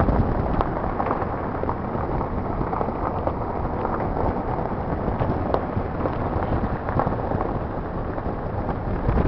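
Wind buffeting the microphone of a camera held at the window of a moving car, a steady rumbling noise over the car's road noise.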